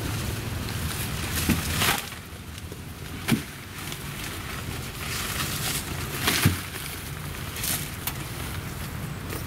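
Saplings in plastic grow bags being set down into a metal wheelbarrow: a few dull thumps, with rustling of leaves and plastic around them.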